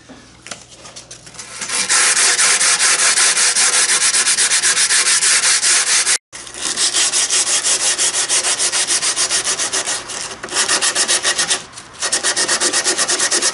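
Sandpaper rubbed by hand over cured epoxy-coated mahogany and plywood in rapid back-and-forth strokes, smoothing the rough epoxy coat. It starts about two seconds in and stops briefly a few times.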